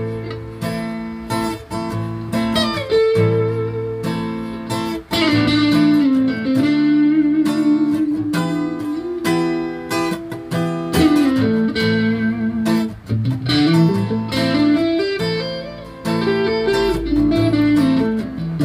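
Electric guitar played through a small amp, an improvised lead with sustained notes bent and slid up and down, over chords strummed on an acoustic guitar.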